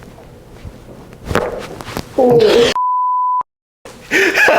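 A short voice exclamation is cut off by a steady 1 kHz censor bleep of well under a second, which drops into dead silence. About a second earlier comes a quick cluster of sharp cracks, the joints popping during a chiropractic back adjustment.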